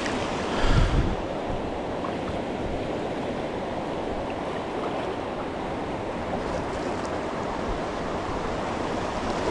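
Steady rushing of river water, with a brief low thump or buffet on the microphone just under a second in.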